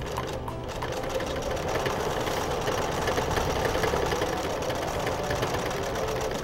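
Domestic electric sewing machine stitching a seam through padded fabric, running steadily with rapid needle strokes.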